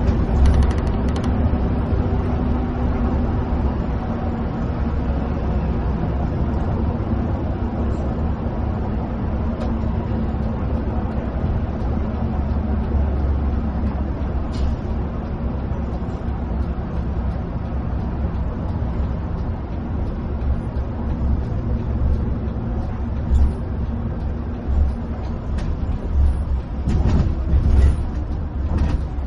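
Tour coach cruising at highway speed, heard inside the cabin: a steady low engine hum over road and tyre rumble, with a few louder bumps near the end.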